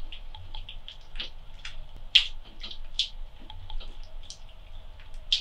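Sticky white homemade slime being squeezed and kneaded by hand, making irregular wet clicks and pops.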